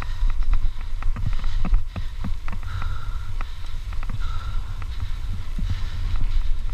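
Mountain bike ridden fast over a rough dirt fire road: a steady low rumble of wind on the camera microphone, with frequent sharp clicks and rattles from the bike and tyres jolting over the bumps.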